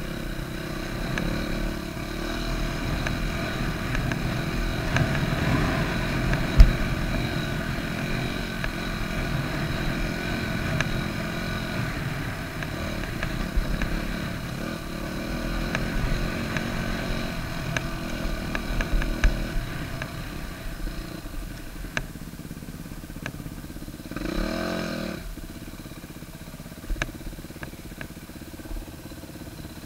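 Yamaha YZ250F dirt bike's four-stroke single-cylinder engine running while being ridden over rough ground, the revs rising and falling with the throttle. Scattered knocks and rattles come from the bike over bumps, with one sharp knock about six seconds in. In the last third the engine runs lower, with one quick rev.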